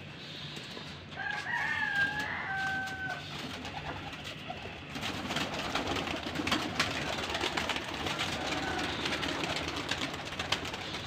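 Pigeons being let out of a rooftop loft. A drawn-out two-part call comes about a second in, then from about five seconds wings flap among sharp knocks and clatter as the birds take off.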